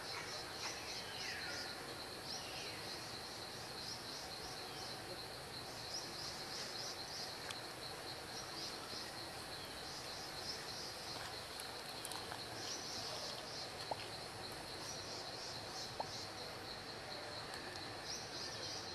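Steady high-pitched insect chorus with a pulsing trill, over a hiss of outdoor background noise. A few short falling chirps sound in the first couple of seconds, and two sharp clicks come in the second half.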